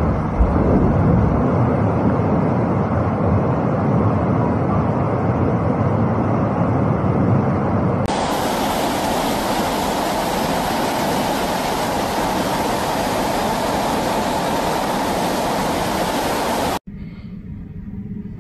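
Floodwater rushing in a torrent, a loud, steady rush of noise. About eight seconds in it switches abruptly to a brighter, wider rush, and it drops much quieter shortly before the end.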